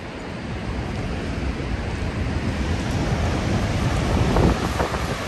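Steady roar of the Horseshoe Falls at Niagara, mixed with wind buffeting the microphone, growing louder over the first couple of seconds.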